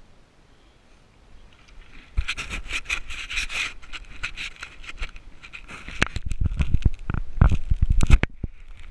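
Digging in rocky sand and stones: scraping, then a quick run of sharp knocks and clinks.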